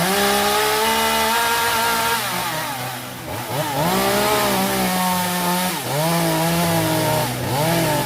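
Chainsaw running at high throttle, its pitch dipping and climbing back a few times.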